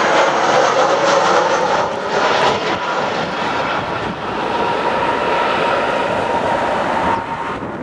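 Airbus A320's jet engines running at approach power as the airliner passes low and lands: a steady rushing engine noise with a steady whine in it, easing off about seven seconds in.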